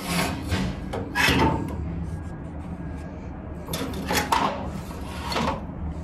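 Gas water heater burner and ignition assembly being worked out of the combustion chamber: a few separate scraping, rubbing strokes as the metal assembly slides against the chamber.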